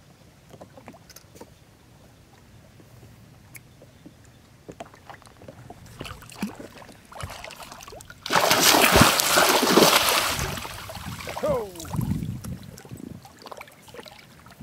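Water lapping and trickling faintly against a boat's side, then a sudden loud rush of splashing water for about two seconds just past the middle, trailing off into gurgles and smaller splashes.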